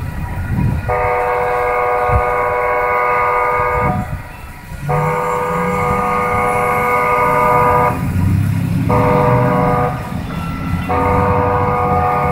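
Light-rail train sounding its horn in the grade-crossing pattern: two long blasts, a short one, then a long one. The low rumble of the approaching train grows underneath.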